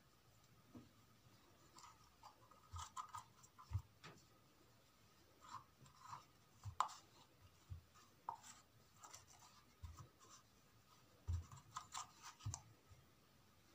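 Faint, irregular scratching and rubbing of fingertips spreading glue over a spool's face, with a few soft knocks as the spool and glue jar are handled on the table.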